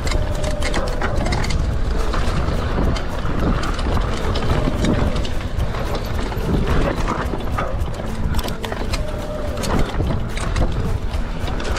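Mountain bike rattling over a rough dirt trail on a descent, with many small knocks and clatters from the bike on the bumps and a heavy low rush of wind on the microphone.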